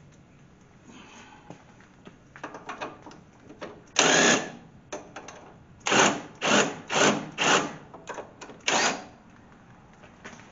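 A power tool run in short bursts, driving the bolts that hold a strut rod to the lower control arm: one burst about four seconds in, then five more in quick succession. Softer clicks and rattles of the tool being handled and fitted come before them.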